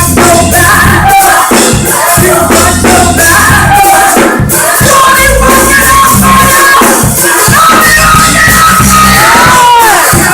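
Live gospel group singing with full band: held vocal notes over bass and drums, with a sung slide in pitch near the end.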